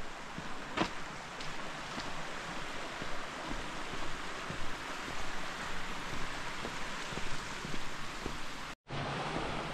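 A steady rush of wind over a hiker's footsteps on a stone trail, with a few clear steps in the first couple of seconds and fainter ones after. Near the end the sound cuts out for an instant.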